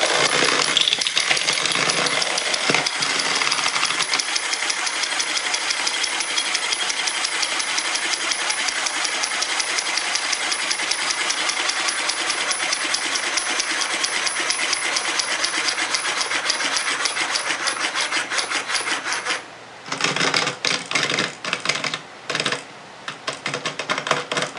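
Small wind-up toys running on a tabletop, their clockwork buzzing in a fast, steady rattle as they knock about among plastic letters. About 19 seconds in the rattle turns stop-start, in short bursts with gaps, as the toys run down.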